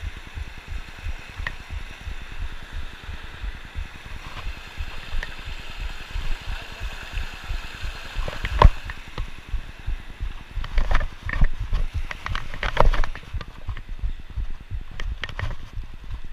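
Footsteps on loose creek-bed stones, with rocks knocking and clacking underfoot, sharper and louder from about halfway through, over the steady rush of the shallow creek.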